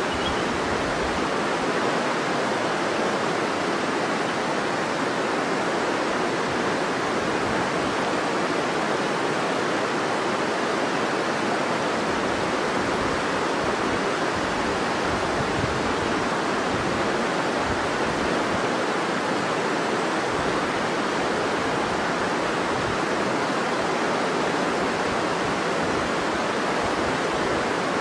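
River water rushing in a steady, unbroken flow.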